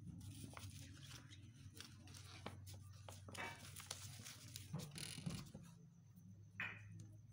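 Faint rustling and light taps of card paper being handled as a glitter-paper strip is pressed along its edge, with a few brief crinkles, over a low steady hum.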